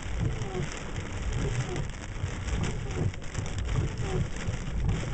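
Heavy rain pouring steadily in a severe thunderstorm, with an uneven low rumble underneath.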